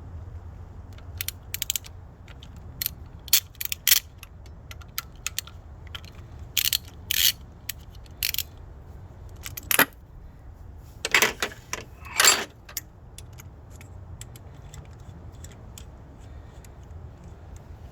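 Metal clicks and clinks of hand tools and small screws being handled while the T30 Torx screws holding the ignition coil packs are taken out: a scattered run of sharp taps and short rattles over a steady low hum, falling quiet after about thirteen seconds.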